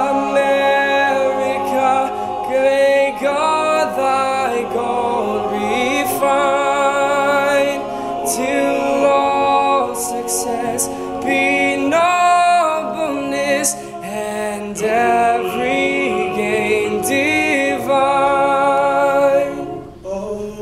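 Male a cappella group singing sustained chords in close harmony, with no instruments, dipping in loudness near the end.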